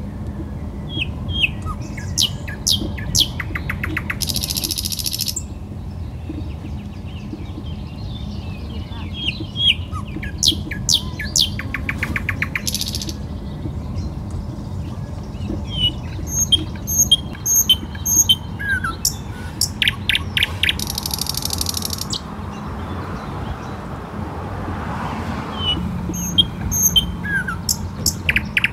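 Small birds chirping, with short calls, quick rising and falling whistles and rapid trills coming again and again, over the steady low rumble of a car driving.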